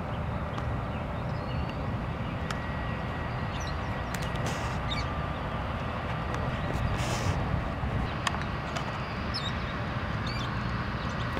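Steady low outdoor rumble, with short high bird chirps now and then and a few faint clicks.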